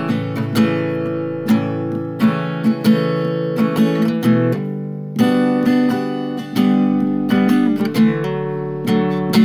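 Background music: acoustic guitar strumming chords in a steady rhythm, with a chord change about five seconds in.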